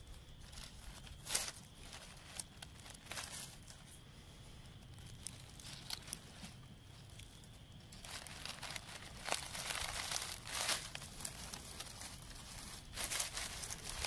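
Fingers digging and scraping through dry leaf litter and soil around a wild ramp plant to loosen it and reach the bulb, giving crackles and crinkles of dry leaves. The crackling comes in scattered bits at first and gets busier from about eight seconds in.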